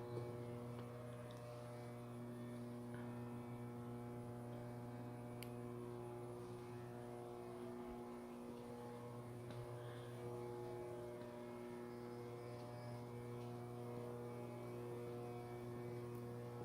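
Sierra Therm conveyor belt furnace running while it heats up: a steady electrical hum with a stack of even overtones, unchanging throughout.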